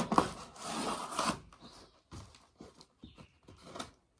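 Cardboard box and packing being opened by hand: rustling and scraping for about the first second and a half, then scattered lighter rustles and taps.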